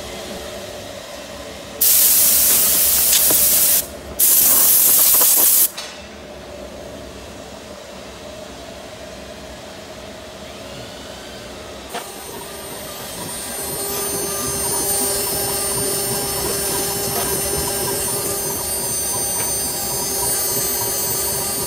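CNC router spindle whining steadily as it carves EVA foam, louder and higher from about twelve seconds in. Two loud bursts of hissing air come near the start.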